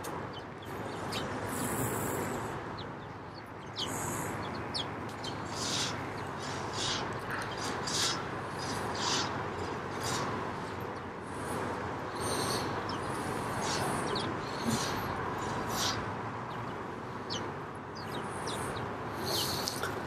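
Small garden songbirds chirping around feeders: many short, high calls scattered through the whole stretch, over a steady background hiss.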